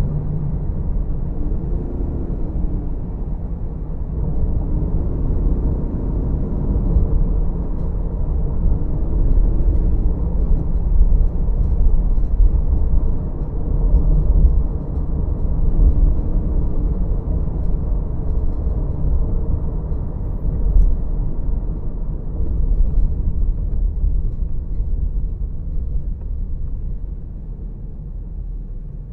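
Low, steady rumble of a car driving: engine and road noise, with faint rising-and-falling tones every few seconds. It eases off near the end as the car slows behind traffic at a red light.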